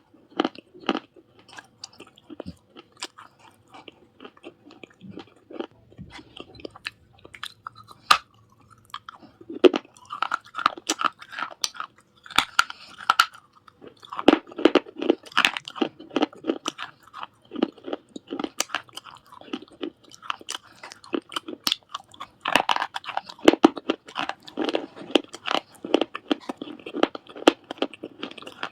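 Fired clay from a surahi (earthen water pot) being bitten and chewed close to the microphone: dense runs of sharp, gritty crunches with short pauses between mouthfuls.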